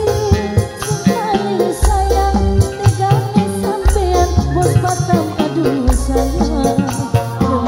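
Live dangdut music: a woman sings a wavering melody into a microphone over a strong, pulsing bass and steady percussion.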